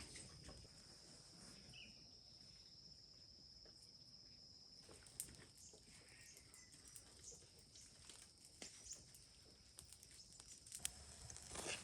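Near silence: faint outdoor background with a thin, steady high-pitched tone and a few scattered faint clicks.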